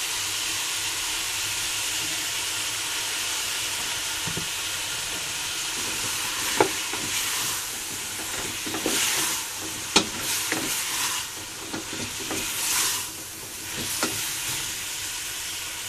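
Chayote strips sizzling as they fry in a hot pan, with stirring sounds and three sharp knocks against the pan in the second half.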